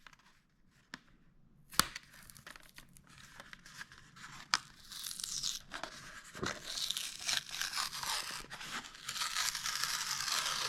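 Packaging of a Matchbox die-cast toy car being torn open and crinkled by hand. A few sharp clicks at first, then near-continuous tearing and crinkling from about five seconds in, growing louder.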